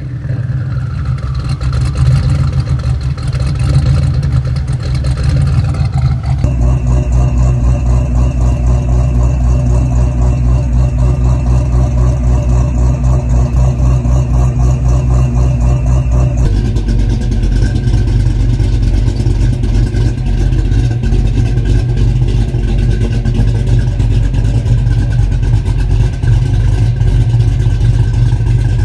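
Ford 5.0 (302) small-block V8s in Fox-body Mustangs idling at the tailpipe, one car after another, each with a steady, pulsing low exhaust rumble. The sound changes abruptly twice, about six and sixteen seconds in, as one car gives way to the next.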